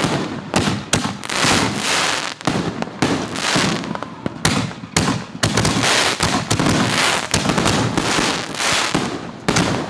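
Consumer fireworks going off in a dense barrage: sharp bangs about two a second, with crackling filling the gaps and never letting up.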